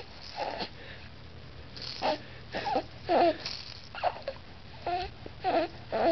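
Three-month-old baby making a string of short, breathy, high-pitched coos and grunts.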